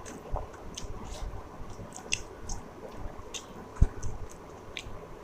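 Close-up chewing of a rice-and-curry meal: wet, squishy mouth sounds with many short smacks and clicks. A single low thump about four seconds in stands out as the loudest sound.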